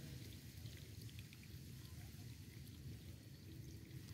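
Quiet paddy-field ambience: a faint low rumble with soft, scattered water trickles and drips at the muddy edge of the paddy water.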